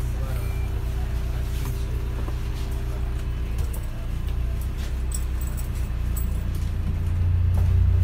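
A bus engine idling, heard from inside the passenger saloon: a steady low drone with a high-pitched idle tone over it and a few light rattles. About seven seconds in the engine note grows louder as the bus pulls away.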